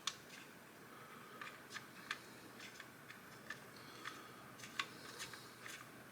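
Faint, irregular light clicks and ticks of small M3 screws and plastic parts being handled as the screws are started into a back plate by hand.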